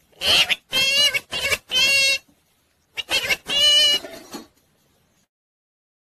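Indian ringneck parakeet vocalizing in short high-pitched calls: four quick ones in the first two seconds, then a longer run about three seconds in.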